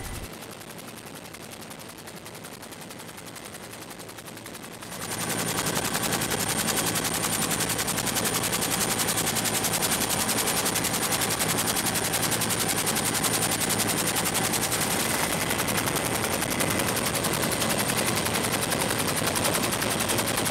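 UH-1 Huey helicopter rotor chopping steadily in a fast, even beat, heard close as from aboard in flight. It gets markedly louder about five seconds in.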